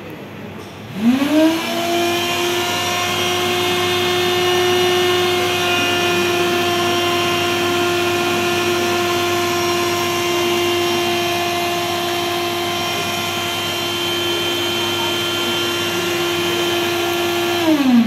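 Robotic cotton candy machine's spinning head whining up to speed about a second in, with a brief louder noise as it starts. It then runs with a steady high hum while the floss winds onto the stick, and the pitch falls away near the end as it spins down.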